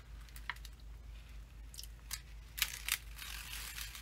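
Plastic protective covering being peeled back off the sticky adhesive of a diamond painting canvas, crackling and crinkling, with a run of louder crackles past the middle.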